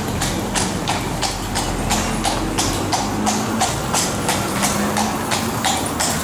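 Hooves of a carriage horse clip-clopping on the street in a steady rhythm, about three strikes a second.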